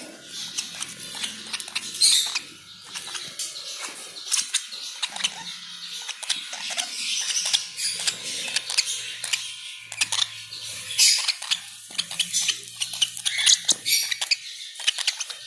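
Parrot chicks making rapid, squeaky chirps and clicks.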